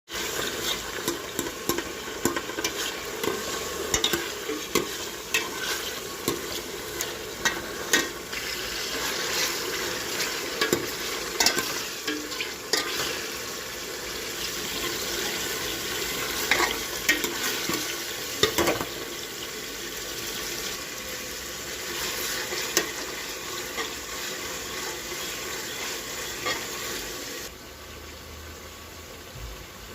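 Food frying and sizzling in a pan while it is stirred, the utensil clicking and scraping against the pan many times. Softer for the last couple of seconds.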